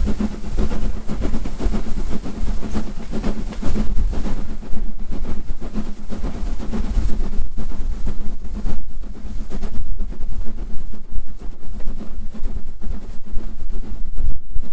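Southern Railway S15 No. 506, a two-cylinder 4-6-0 steam locomotive, working hard up a steep gradient: loud exhaust beats over a continuous low rumble of wheels on rail, heard from close behind the engine.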